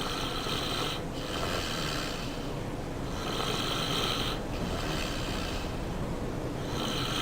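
A person snoring in a slow rhythm: three rasping breaths, one just after the start, one about three seconds in and one near the end.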